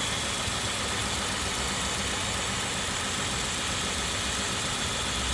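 2003 Kia Sorento's 3.5-litre V6 idling steadily with a misfire on cylinder 1, which the trouble codes point to and which is blamed on a leaking spark plug boot.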